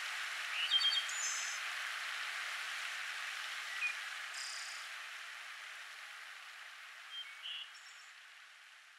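Steady outdoor ambience hiss with a few faint short chirps, slowly fading out to silence near the end.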